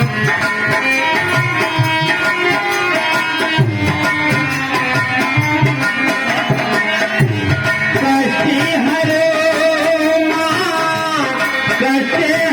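Live Indian devotional music: a dholak beats a steady rhythm under a melody instrument playing the tune.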